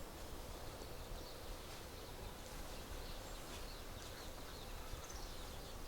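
Outdoor rural ambience: a steady background hiss with a few faint bird chirps.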